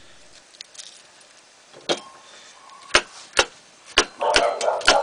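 Four sharp knocks of a kitchen knife on a chopping board, roughly a second apart, as garlic is cut roughly. Dogs start barking in the background near the end.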